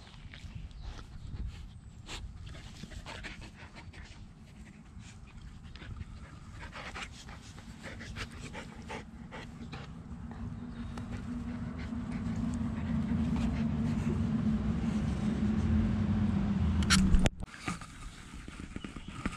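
Dogs panting, with scattered soft clicks and rustles. Partway through, a low rumble builds up and then cuts off suddenly near the end.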